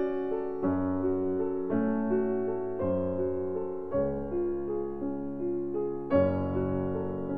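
Background piano music, slow sustained chords over a low bass note, a new chord struck about once a second.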